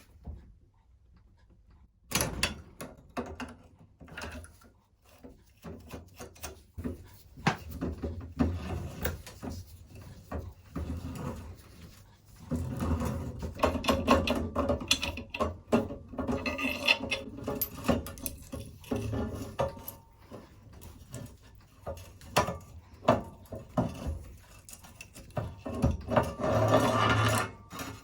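Irregular clicks, knocks and rubbing of tools and metal bicycle parts being handled while a bike is taken apart by hand, busiest for a few seconds around the middle and again near the end.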